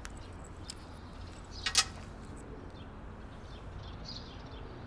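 Quiet room ambience with a steady low hum and a few faint high chirps like distant birds. A little under two seconds in comes one brief, sharp rattling click, a small object handled in the hands.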